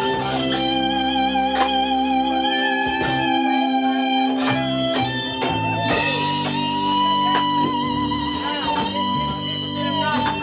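Live R&B band playing: an electric guitar holds long notes with vibrato over a bass line and drums.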